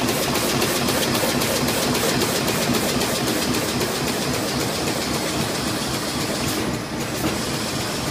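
Plastic bag-making machine running steadily, a fast, even mechanical clatter over a continuous machine hum; the clatter briefly dips about seven seconds in.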